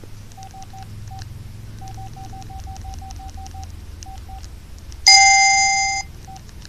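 Casio G'zOne Ravine flip phone's keypad beeps: short beeps all at one pitch as its buttons are pressed, a few singly and then a quick run of about a dozen, with faint button clicks. About five seconds in, a louder, fuller tone sounds for about a second.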